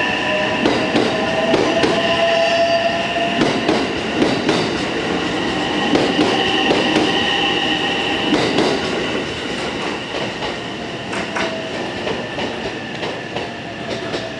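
JR West 227 series electric train pulling out and running past the platform: wheels clacking over rail joints over a steady rumble, with a few steady high tones on top. The sound eases off from about nine seconds in as the last car passes.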